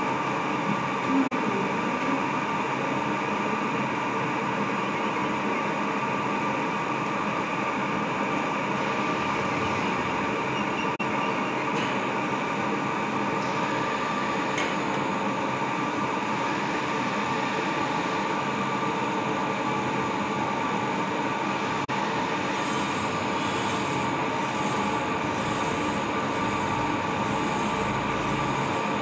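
Crankshaft grinding machine running, its abrasive wheel grinding a journal of a Mahindra Scorpio mHawk diesel crankshaft. It is a steady, unbroken grinding whine with several held tones.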